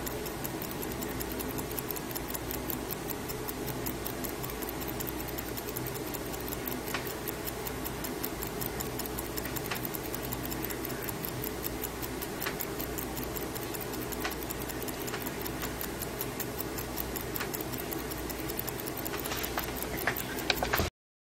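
Mechanical wristwatch movement ticking fast and evenly over a steady low hum, with a few louder clicks near the end before the sound cuts off suddenly.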